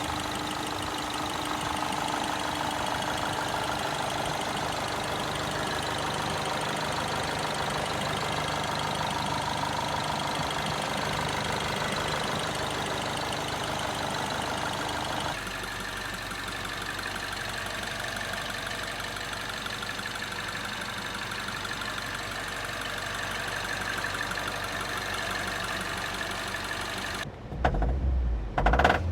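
Peugeot RCZ THP 200's 1.6-litre turbocharged four-cylinder engine running steadily, carrying an unidentified noise that the owner is trying to diagnose. About halfway through the sound changes suddenly as a steady hum drops away. Near the end there are louder, irregular low thumps.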